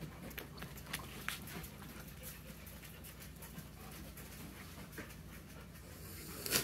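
Puppies playing rough on a mattress: faint scuffling and panting with scattered soft clicks over a low steady hum, and a sharper knock near the end.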